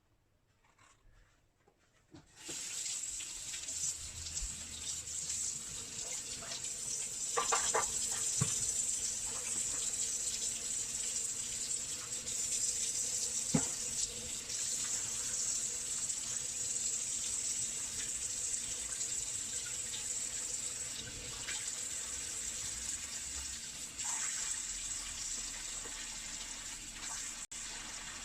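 Tap water running into a sink, turned on about two seconds in and then flowing steadily, with a few short knocks from items being handled in the sink.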